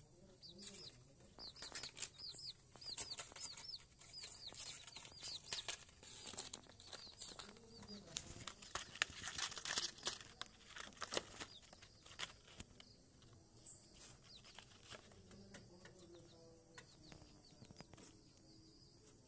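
Chicks peeping: many short, high calls that fall in pitch, coming thick and fast for the first ten seconds or so and then thinning out, with scattered clicks and rustles.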